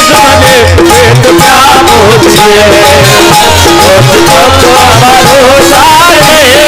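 Instrumental music opening a Hindi bhajan: a steady drum beat under a wavering, ornamented melody line.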